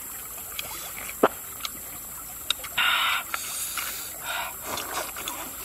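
Eating sounds: metal spoons clicking and scraping against an ostrich eggshell used as a bowl, with one sharp click about a second in. Two short, noisy mouth sounds of eating follow later.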